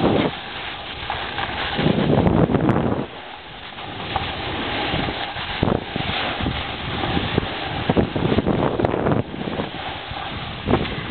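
Wind buffeting the microphone and the scrape of sliding over packed snow while riding down a ski slope. It is loud and uneven, swelling and dipping, with occasional knocks.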